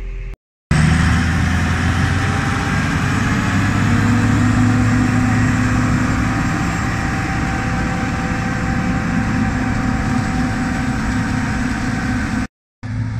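John Deere 2066 combine harvester running steadily while cutting corn: a continuous diesel engine and machinery drone. The sound drops out briefly just after the start and again near the end.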